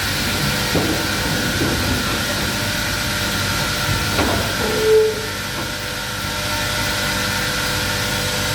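Wood-Mizer WB2000 industrial sawmill running, a steady machinery noise with a faint hum and a few light knocks, and one short squeal about five seconds in.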